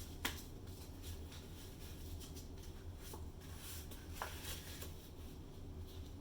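Faint scraping and handling sounds, with a sharp click just after the start and another about four seconds in, over a low steady hum.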